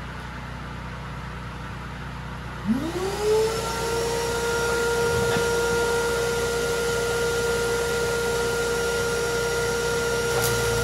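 A vacuum cleaner used as a welding fume extractor is switched on about two and a half seconds in: its motor whine rises quickly in pitch as it spins up, then runs steady. Under it is the low, steady hum of an engine-driven welder running.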